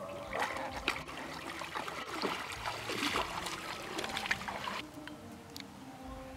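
Sambar deer licking a tree trunk: wet, crackly slurping sounds for about four and a half seconds, stopping near the end.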